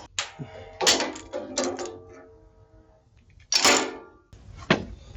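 Thin sheet steel clanking in several separate knocks, a few of them followed by a brief metallic ring, as a patch panel is cut and handled.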